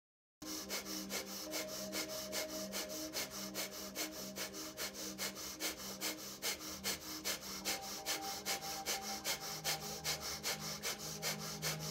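Breath of fire: rapid, forceful breathing through the nose, each sharp exhale pumped by pulling the belly in, repeating evenly several times a second. The sound drops out briefly at the very start.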